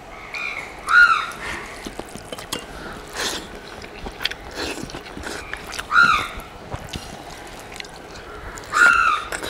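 A bird calls with a short rising-and-falling note three times: about a second in, around six seconds and near the end. Between the calls come soft eating sounds, small clicks and smacks of food being handled and chewed.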